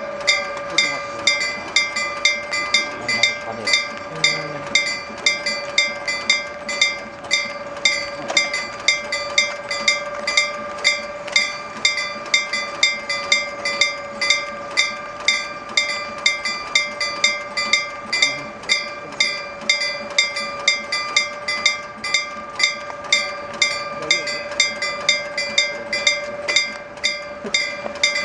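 Level-crossing warning bell ringing: a hammer strikes the bell about twice a second in an even rhythm, with the bell's tone ringing on between strikes.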